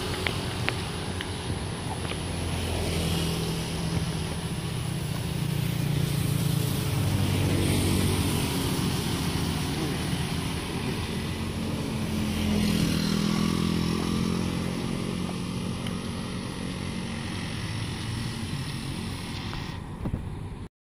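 Scooters and small motorcycles passing along a wide road: a steady engine drone that swells and fades as riders go by, loudest twice in the middle, over a constant high hiss.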